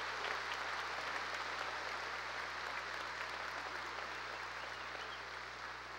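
Large audience applauding: a dense, steady wash of clapping that slowly dies down.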